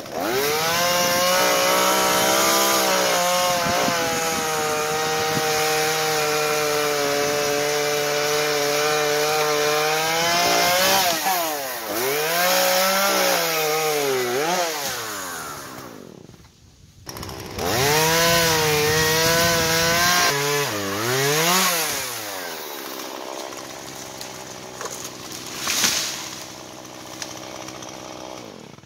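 Gasoline chainsaw cutting a branch off a standing tree: the engine runs at full revs for about ten seconds, then revs up and down, and cuts out briefly. It starts again, cuts at full revs, revs up and down once more, and then drops to a steady idle. There is a sharp thump near the end.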